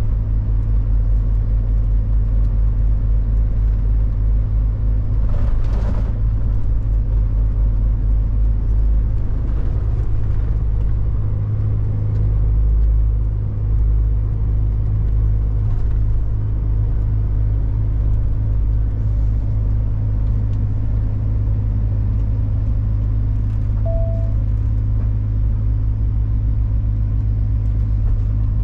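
Big truck's engine droning steadily as heard inside the cab while driving, with a short hiss about five seconds in and one brief beep near the end.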